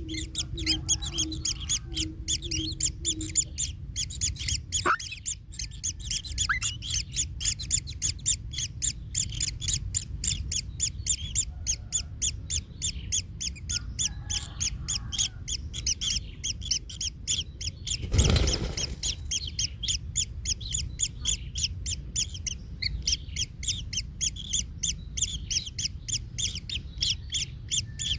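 Kingfisher nestlings calling in a fast, steady series of high chirps, about three a second, with one brief thump about two-thirds of the way through.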